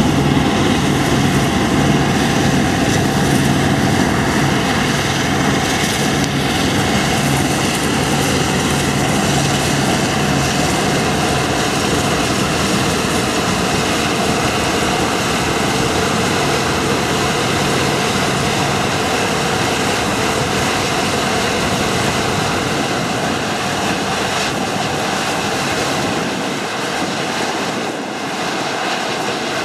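Heavy Deutz-Fahr harvest machinery running steadily, a dense, even machine noise. A low engine hum in it fades out about two-thirds of the way through.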